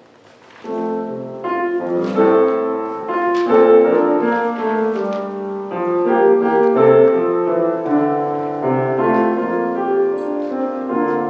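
Piano playing the slow instrumental introduction to a hymn, starting about a second in with changing chords under a melody.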